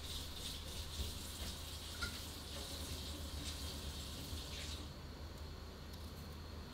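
Water running steadily from a kitchen tap, cutting off about five seconds in, with a few faint clicks of a small knife cutting into a radish.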